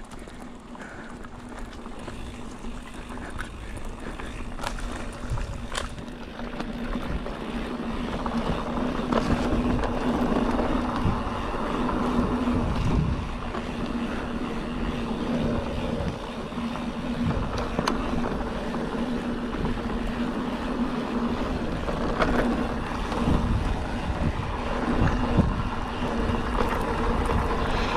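Mountain bike rolling down a dry dirt trail: tyre rumble, wind on the microphone and knocks and rattles over bumps, with a steady buzz underneath. It grows louder over the first ten seconds or so as speed builds.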